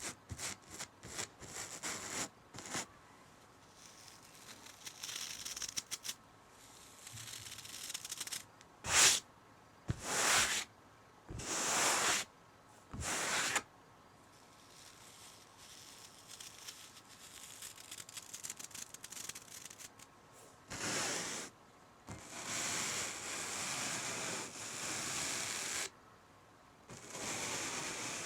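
Scratching and rubbing strokes on fabric: a run of quick short scratches at first, then four separate strokes a little over a second apart, then a long continuous rub near the end.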